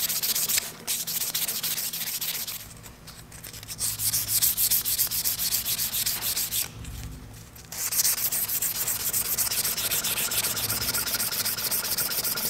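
Knife handle being sanded by hand with sandpaper: quick back-and-forth scratchy strokes, stopping briefly twice.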